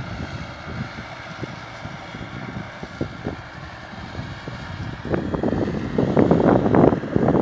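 Deutz-Fahr Agrofarm 115 tractor engine running steadily under load while pulling a plough. About five seconds in, gusts of wind buffet the microphone and cover it.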